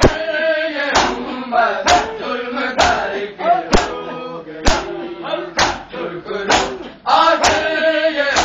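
A group of men beating their chests in unison (matam), one sharp slap about every second, while male voices chant a noha over the beats.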